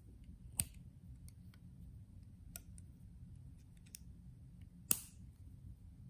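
Titanium mini balisong utility knife being opened by hand, its metal handles and latch clacking: two sharp clicks, about half a second in and near five seconds, with light ticks between.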